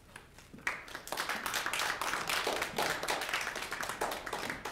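Audience applauding, with many hands clapping, starting about half a second in and carrying on steadily.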